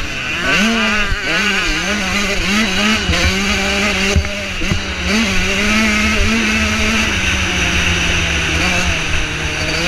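Motocross bike engine under race throttle, its pitch rising and dipping repeatedly as the rider works the throttle, then holding steady from about seven seconds in.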